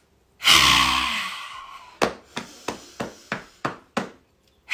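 A loud, forceful voiced out-breath that falls in pitch and fades over about a second and a half, as in a haka-style breathing exercise. It is followed by quick drumming of fists on the chest, about three knocks a second. Another big out-breath starts at the very end.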